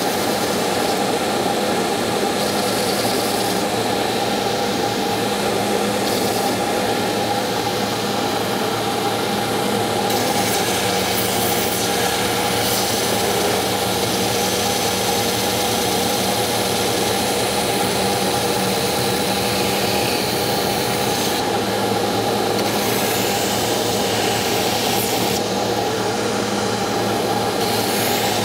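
Belt grinder running steadily, its abrasive belt sanding and shaping the end of a hickory axe handle: a continuous motor hum under the hiss of the belt grinding the wood.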